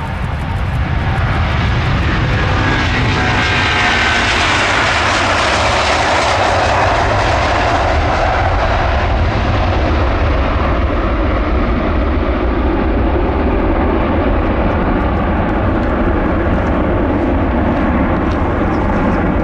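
Airbus A330-743L Beluga XL's twin Rolls-Royce Trent 700 turbofans at takeoff power: loud, steady jet engine noise, brightest and loudest about five seconds in as the aircraft passes on its takeoff roll. The noise turns lower and duller as it lifts off and climbs away.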